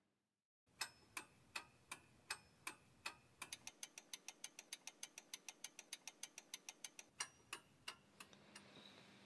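A clock ticking. It starts about a second in at roughly three ticks a second, speeds up to about six a second in the middle, then slows and fades near the end.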